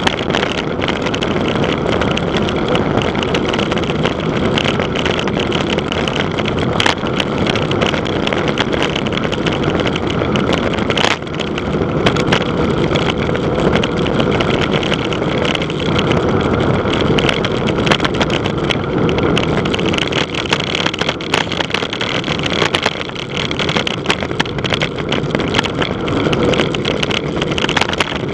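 Wind rushing and buffeting over the camera microphone, loud and steady, as from riding a bicycle fast downhill.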